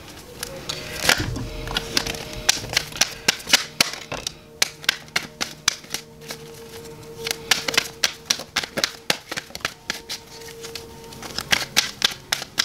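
A tarot deck being shuffled by hand, the cards clicking and slapping in quick runs. Soft background music holds a steady note underneath.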